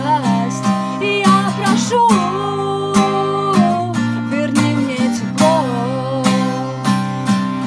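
A woman singing while strumming an acoustic guitar in a steady rhythm, the voice carrying long held notes over the chords.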